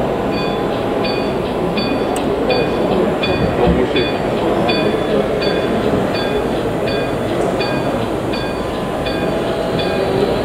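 Steady background noise of a model railway exhibition hall, with a short, high ding repeating evenly about every 0.7 seconds.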